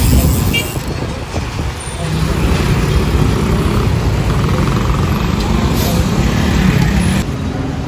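Busy street traffic: car and motorcycle engines running and moving, with motorcycles passing close by.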